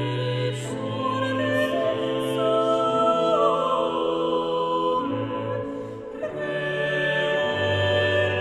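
Slow classical background music: long held chords that shift every second or two over a low sustained bass note.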